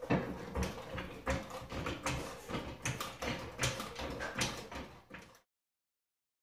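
Floor jack being pumped under a car: a knock and click about every three quarters of a second, cutting off suddenly near the end.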